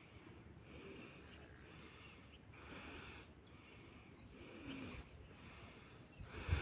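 Faint breaths hissing through one nostril at a time in alternate-nostril breathing (pranayama), slow inhales and exhales following each other about every second. A short loud bump near the end.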